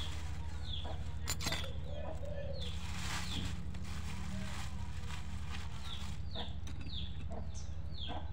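Chicks peeping over and over in short falling cheeps, more often in the second half, over a steady low hum. A plastic bag crinkles briefly about a second and a half in.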